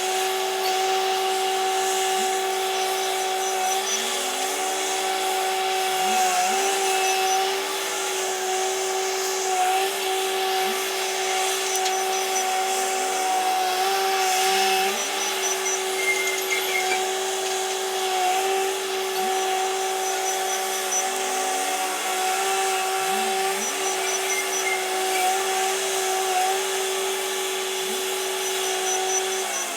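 Komatsu WA500 wheel loader running hard, with a steady high-pitched whine from its engine and hydraulics and short rising chirps every second or two.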